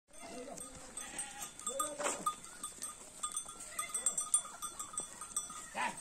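A herd of goats bleating, several short separate calls, over a steady high-pitched whine and scattered light ticks.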